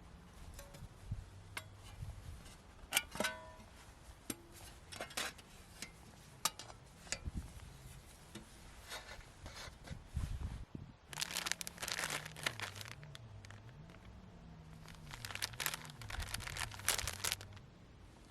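Crinkling and rustling, as of packaging or a bag being handled, with scattered small clicks and knocks and two longer spells of rustling about eleven and fifteen seconds in.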